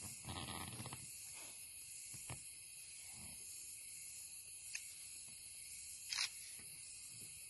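Steady high-pitched hiss of a night insect chorus. It is broken by a brief louder noise near the start, a couple of faint clicks, and a short sharp burst about six seconds in.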